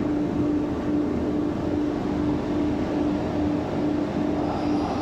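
Machine running steadily, with a low humming tone that pulses on and off about twice a second over a constant mechanical noise.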